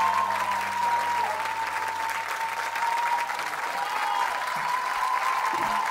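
Studio audience applauding at the end of a live rock song, with a steady high tone held over the clapping.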